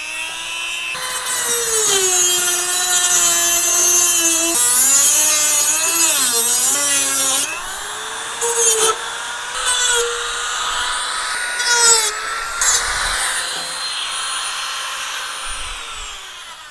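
Dremel rotary tool cutting down the metal locking pin of a swivel seat adapter. A high motor whine sags in pitch as the tool bites, with a harsh grinding hiss for several seconds. Then come a few short touches of the tool to the pin, and the motor winds down near the end.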